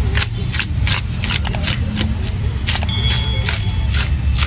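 Knife blade scraping the scales off a large catla carp, about three quick scrapes a second over a steady low hum. A brief high ringing tone sounds about three seconds in.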